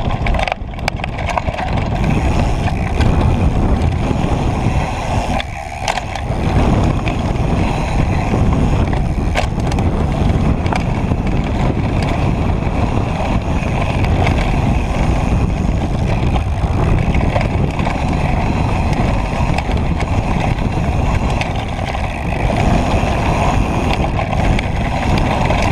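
Propain Tyee mountain bike riding fast down a loose gravel and dirt trail: a steady rush of wind on the microphone and tyres crunching over gravel, with frequent short knocks and rattles from the bike over bumps.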